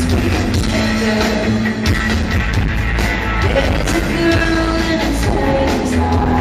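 Rock band playing a song live at full volume, with a steady drum and bass beat under held guitar or vocal notes, heard as a concert-hall recording.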